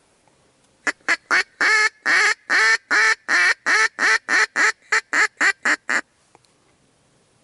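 A rapid series of about eighteen loud duck quacks, about four a second, starting about a second in and stopping about a second before the end.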